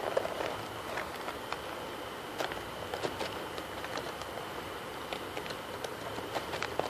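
Light handling noise from packs of crayons and art supplies being moved around inside a cardboard box: scattered small clicks and rustles over a steady background hiss with a faint high hum.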